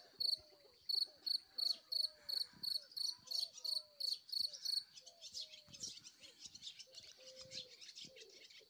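Field cricket chirping: a steady run of short high chirps, about three a second, that stops about halfway through. Fainter, irregular high chatter follows.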